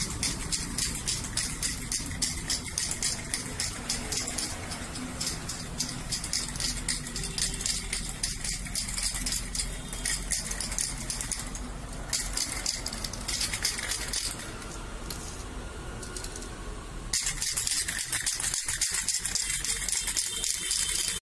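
Spray-paint aerosol can being shaken, its mixing ball rattling at several strokes a second. It pauses twice for a second or more, starts again louder near the end, then cuts off suddenly.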